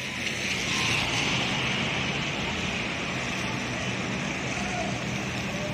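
A steady hiss of rain over the low, even hum of a coach's diesel engine running at idle.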